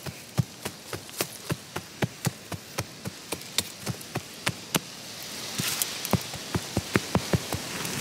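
A broad metal chopping blade striking into dry sandy soil over and over, about three strikes a second, with a brief rush of scraped, loosened soil about two-thirds of the way through before the chopping goes on.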